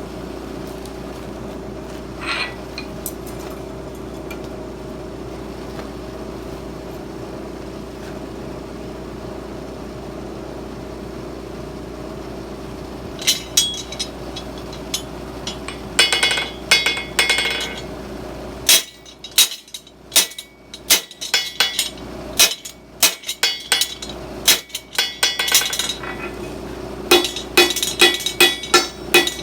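Hammer blows on steel at an anvil: a few scattered strikes about halfway in, then runs of quick ringing blows, about three a second near the end. A steady hum runs under the first half.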